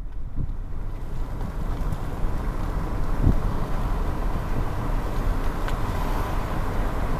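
Wind buffeting the microphone: a steady rumbling noise, with a short low thud about three seconds in.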